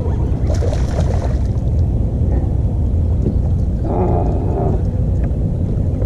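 Steady low rumble on a kayak-mounted camera's microphone, with a brief pitched call about four seconds in.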